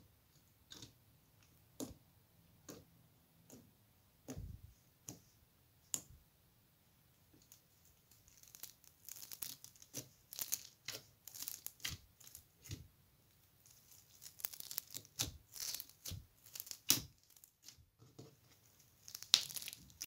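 Fingers poking and squeezing glossy slime: separate sticky pops and clicks as the fingers press in and pull out. From about eight seconds in, a dense crackling crunch as the small foam beads mixed into the slime are squished.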